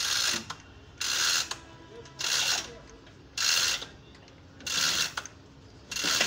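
Hand-operated chain hoist lowering an engine: the chain rattles and clicks through the hoist in short bursts of about half a second, a little more than one a second, one for each pull of the hand chain.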